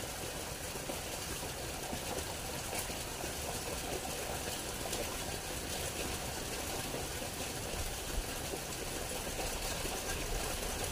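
Small stream of running water, a steady even rush.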